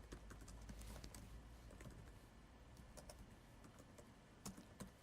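Faint computer keyboard typing: scattered soft key clicks, with a couple of sharper ones near the end.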